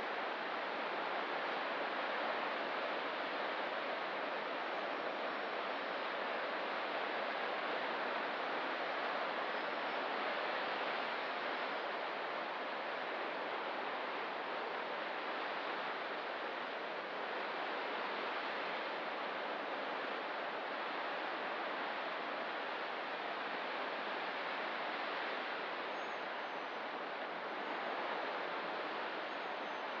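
Steady wash of ocean surf on a rocky shore, an even rushing noise with no breaks. Faint high bird chirps come through now and then, a few of them near the end.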